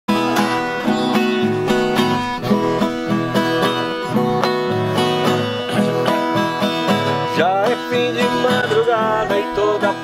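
Acoustic guitar played in a brisk plucked and strummed caipira-style accompaniment, with a singing voice coming in near the end.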